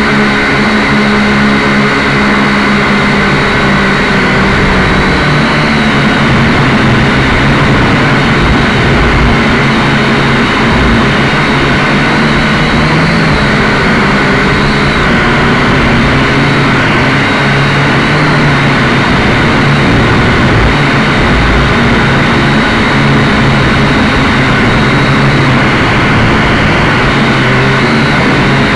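Quadcopter's electric motors and propellers whirring, heard close up from the camera on board: a loud, steady drone of several tones that waver slightly in pitch as the craft manoeuvres.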